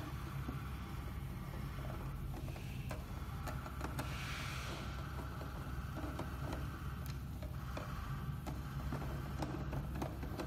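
Hand screwdriver turning small screws out of a projector's circuit board: scattered light clicks and a short scrape about four seconds in, over a steady low hum.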